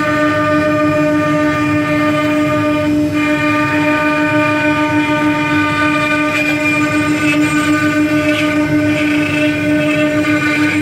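Four-spindle 4-axis CNC router carving wooden balusters: the spindles run with a steady whine over the rough noise of the bits cutting the turning wood.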